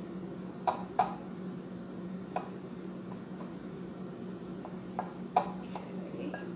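A utensil stirring dry flour mix in a glass mixing bowl, with soft scraping and a handful of sharp clinks against the glass, the loudest about five seconds in. A steady low hum runs underneath.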